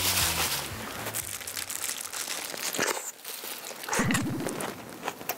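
A plastic-gloved hand mixes chili-seasoned vegetables by hand in a basin, making wet squelching, crinkling and crunching sounds. A short low burst comes about four seconds in.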